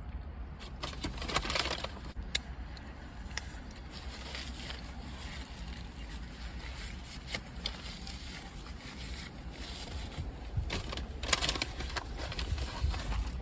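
Someone eating a burger: chewing and the crinkle of a paper food wrapper in short bursts, about a second in and again near the end, over a steady low rumble.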